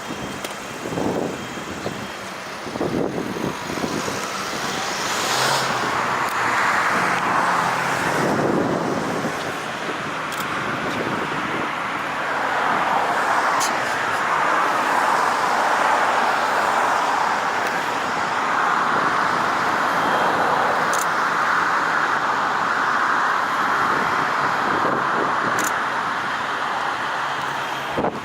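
Road traffic going by steadily, swelling as vehicles pass.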